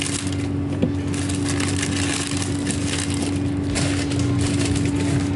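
Crinkling and crackling of a foil trading-card booster pack wrapper being handled and opened, over a steady low hum.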